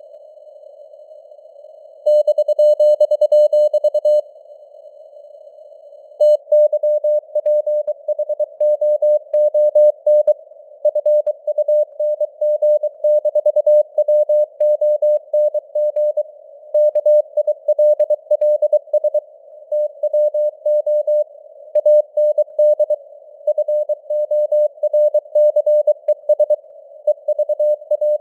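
Morse code (CW) sent as a single tone of about 600 Hz over a narrow band of simulated radio hiss. After two seconds of hiss alone, the tone is held steady for about two seconds, then pauses for two seconds. From about six seconds in it keys out characters at 23 words per minute.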